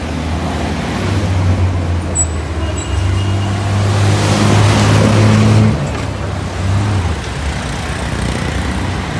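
Busy street traffic, with a city bus's engine droning low as it passes close, loudest around five seconds in and dropping away about six seconds in.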